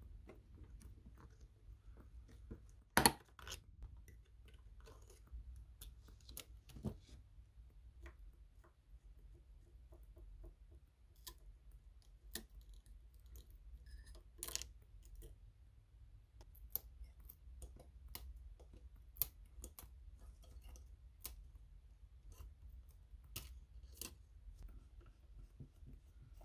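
Small metal repair tools (tweezers, a pry tool, a small screwdriver) clicking, tapping and scraping on an emptied iPhone XS Max housing. Scattered faint clicks, with a sharper tap about three seconds in and another near the middle.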